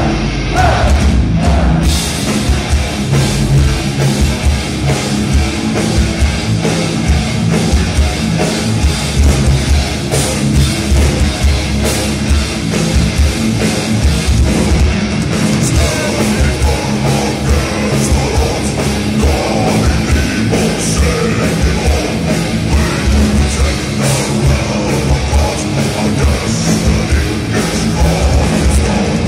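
Heavy metal band playing live at full volume: distorted guitars, bass and a drum kit in a melodic death metal song.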